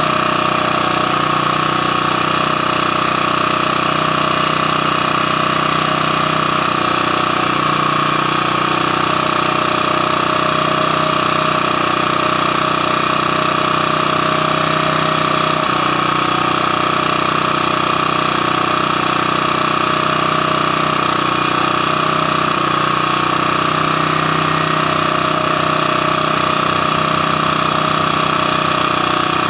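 Champion 1800/1400-watt portable generator's single-cylinder engine running steadily at a constant speed. It is being kept running to clear a carburetor the owner believes has a clogged emulsion tube.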